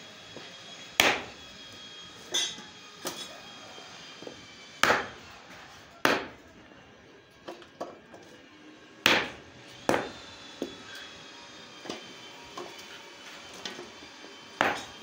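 Block of paraffin wax being chopped into chunks with a hand tool: about a dozen sharp, irregular strikes, one to two seconds apart.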